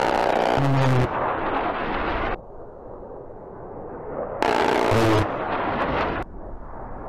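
F-35 fighter jet passing low. Its rumble grows, and twice it breaks into a loud, sudden burst of noise lasting a second or two that cuts off abruptly.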